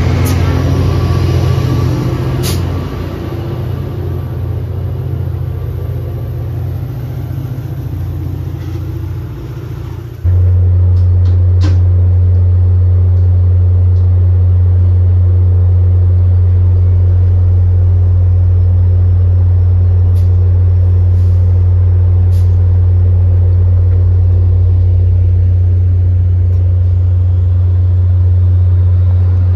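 MBTA F40PH-3C diesel locomotive running as it passes close by, with two sharp clicks in the first few seconds. About ten seconds in the sound cuts to a loud, steady low drone of the locomotive approaching.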